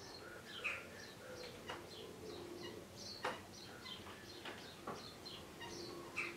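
Faint birdsong: many short chirps and calls, with a few light taps scattered among them.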